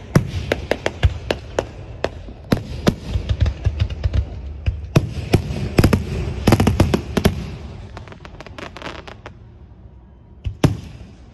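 Aerial fireworks shells bursting in a rapid run of overlapping sharp bangs and crackles, which thin out after about seven seconds, with one more loud bang near the end.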